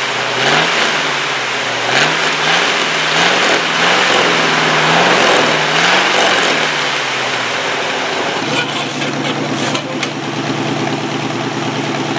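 Chevy small-block 350 V8 revved up and down in quick repeated blips, one roughly every half second or so. After an abrupt cut it runs at a steady idle.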